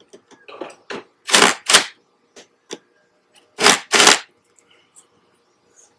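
Cordless impact driver run in short bursts, driving the bolts of a transducer mounting bracket into a fiberglass boat transom. The loudest bursts come in two pairs, about a second and a half in and about four seconds in, with weaker short bursts between.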